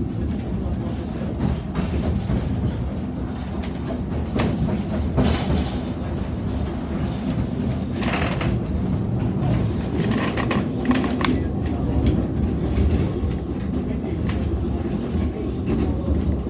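Narrow-gauge railway carriage running along the track, heard from inside the carriage: a steady low rumble with scattered wheel clicks and rattles.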